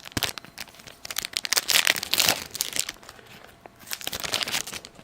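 Plastic wrapper of a hockey card pack crinkling as it is torn open and handled, in irregular bursts, loudest about a second and a half in and again near the end.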